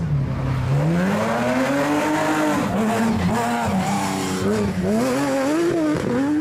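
Rivet Nissan rally-raid buggy's engine revving hard under acceleration. The pitch climbs over the first two seconds, then drops and rises again several times as the driver shifts gear and lifts and reapplies the throttle.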